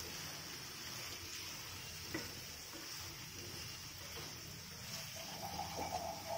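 Pointed gourd, potato and tomato pieces sizzling faintly in hot oil in a non-stick kadai as a spatula stirs them, with a couple of soft taps of the spatula against the pan.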